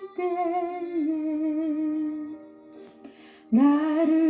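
A woman singing a slow Korean hymn to the Virgin Mary, drawing out each word over long notes with vibrato. Near the middle the voice drops away for a breath, then comes back in on the next word.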